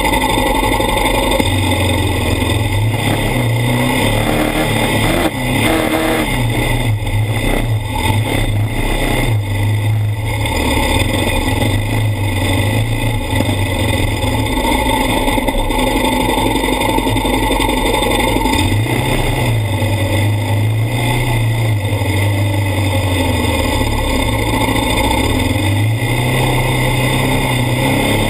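ATV engine heard from a camera mounted on the machine, running hard over sand, its pitch climbing and dropping again and again as the throttle is opened and eased off.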